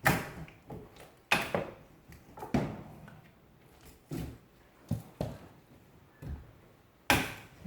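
Scattered sharp knocks and clanks during work on a fireplace insert, about eight of them at irregular intervals, each dying away quickly.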